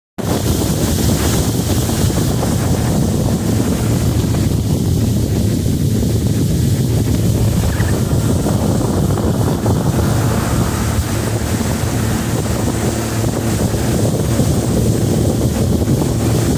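Wind buffeting the microphone over the steady drone of a small motorboat running under way on a river.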